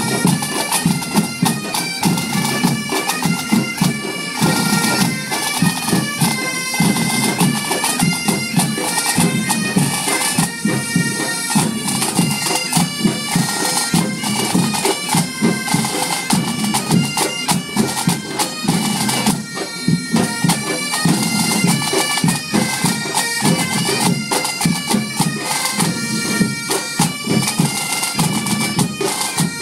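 Breton bagad pipe band playing: bagpipes carry a quick, stepping melody while drums beat underneath.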